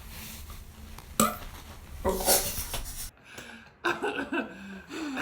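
A fart: a loud, buzzing blast with a low rasping tone lasting about a second, starting about two seconds in and cutting off abruptly. A sharp click comes just before it, about a second in.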